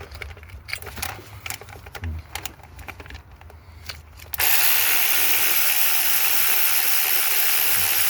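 A ratchet working a bolt on a Mercedes V6 diesel engine: a run of scattered clicks, then about four seconds in a power ratchet starts and runs steadily and loudly to spin the last bolt out.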